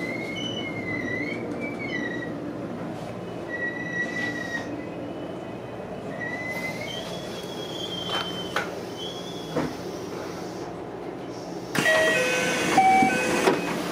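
Train wheels squealing on the rails in wavering high whistles over the low rumble of the moving car. Near the end a sudden louder run of short tones at several pitches sets in.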